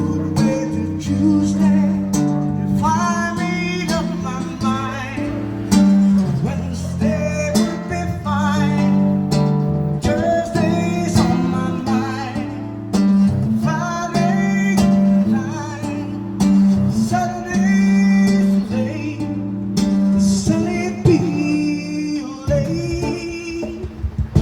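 Acoustic guitar music: chords played steadily, with a wavering melody line above them.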